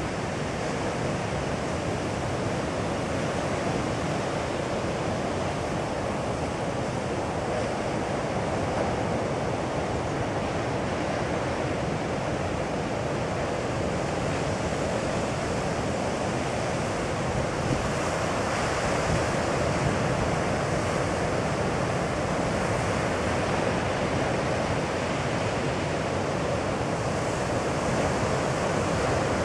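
Ocean surf: breaking waves making a steady, continuous wash, growing a little louder about eighteen seconds in and again near the end.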